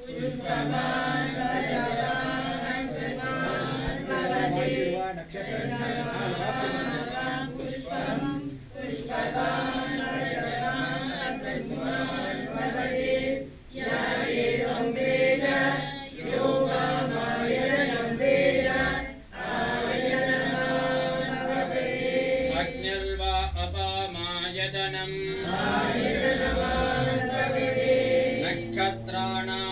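Several voices chanting a Hindu ritual chant together in long, steady phrases with short breaks between them.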